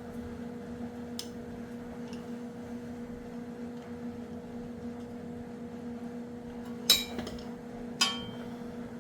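Steady hum with a few faint ticks, then two sharp metallic clinks about a second apart near the end, the second ringing briefly: hand tools and a steel bracket being handled during strut bracket removal on a mini truck.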